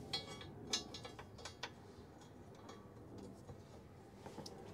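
A few short metallic clicks and rattles, irregularly spaced and mostly in the first couple of seconds, as a cover panel is fitted onto the side of a skid steer loader.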